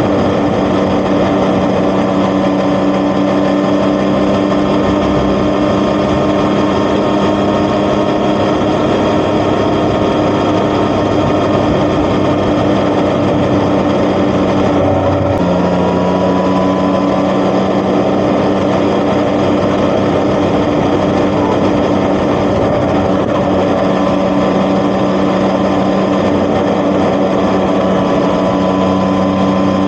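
Yamaha XSR900's three-cylinder engine running steadily through an Akrapovic titanium exhaust. There is a brief dip in the engine note about halfway through, after which it settles back to a steady tone.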